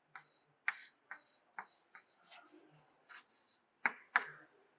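Faint, irregular light clicks and taps, about seven of them spread over a few seconds, with soft hiss between.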